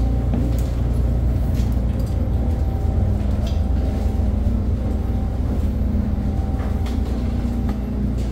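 Steady, loud drone of the aircraft carrier's interior machinery and ventilation, a low hum with several steady tones, with a few faint knocks of footsteps on the steel deck.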